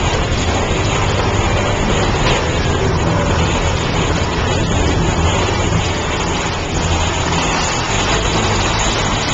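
Big Thunder Mountain Railroad mine-train roller coaster running along its track, heard from a seat on the train: a steady, loud, low rumble of the moving cars.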